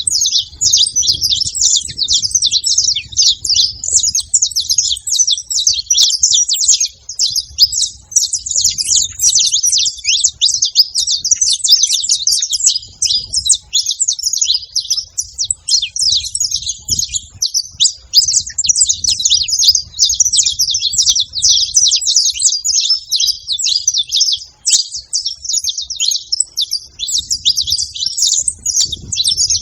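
Saffron finch (canário-da-terra) singing a long, almost unbroken stream of rapid, high chirps and trills, with a faint low rumble underneath at times.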